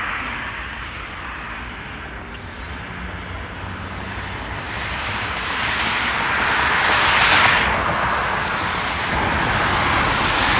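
Jet airliner passing low overhead, its engine roar swelling to a peak about seven seconds in and staying strong to the end.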